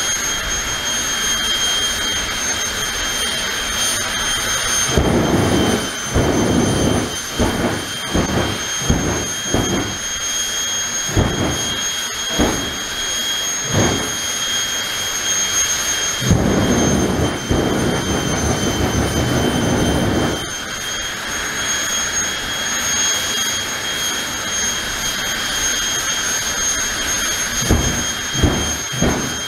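Jet dragster's turbine engine running at the start line, a steady high whine over rushing noise. About five seconds in come several seconds of short rumbling afterburner bursts, then after the middle a longer burst of about four seconds.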